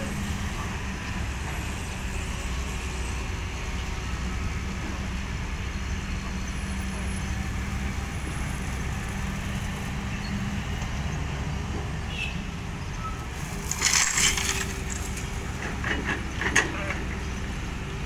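Hyundai 220LC-9S hydraulic excavator's diesel engine running steadily under load. About fourteen seconds in, a loud rattling rush of gravel, with a shorter one a couple of seconds later, as crushed stone pours from the bucket into the dump truck's steel bed.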